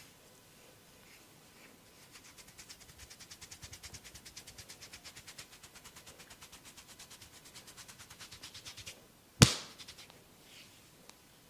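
Massage hands striking skin in a fast, even rhythm, about eight light strokes a second, which stop after some seven seconds. A moment later comes one sharp, loud snap, the loudest sound here.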